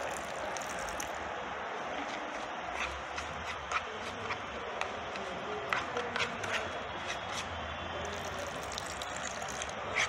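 Milk pouring into shredded coconut in a plastic bowl, then a spoon stirring the wet mixture, with scattered light clicks of the spoon against the bowl over a steady background hiss.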